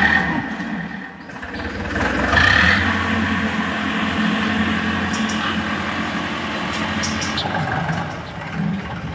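Tractor diesel engine running under load as it hauls a trailer of soil. It revs up about two seconds in, then holds a steady drone.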